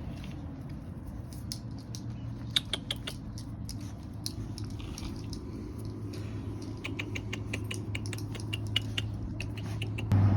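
Puppy moving near the held-out snack, making clusters of light clicks and ticks, a few about two and a half seconds in and a longer run from about seven seconds, over a steady low hum.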